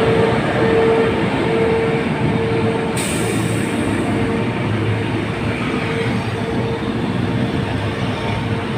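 Heavy diesel truck engine running as a wireline logging truck pulls away down the road, mixed with the noise of a passing car and motorbikes. A steady hum runs under it, and a sharper hiss joins in about three seconds in.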